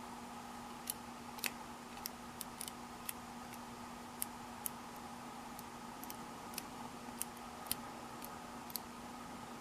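Bobby-pin pick working the pins inside a heavy Brinks padlock's keyway, with the bobby-pin tension wrench in place: irregular small metallic clicks and ticks, over a faint steady hum.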